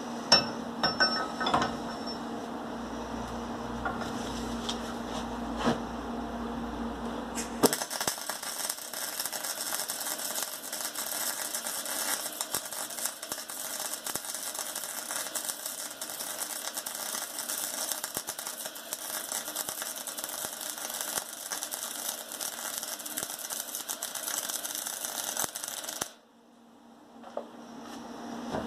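Electric arc welding: a steady crackling sizzle of the welding arc starts about eight seconds in, runs for about eighteen seconds and cuts off suddenly near the end. Before it, a steady low hum with a few light clicks.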